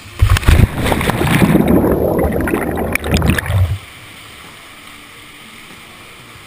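Rushing water and splashing as a canyoner slides down a waterfall chute into a pool. It is loud for about three and a half seconds and ends with the plunge into the pool, then gives way to the steady sound of flowing water.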